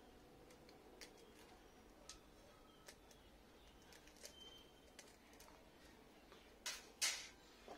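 Faint scattered clicks of eggshell being picked and crumbled off a roasted chicken egg, with two louder crackles about seven seconds in.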